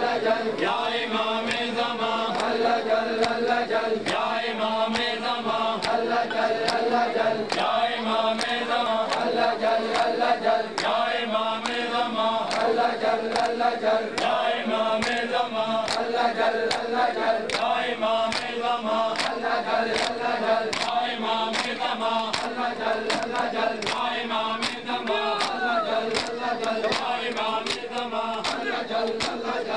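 A crowd of men chanting a mourning lament in unison, with hand slaps on bare chests (matam) striking a steady beat about one and a half times a second.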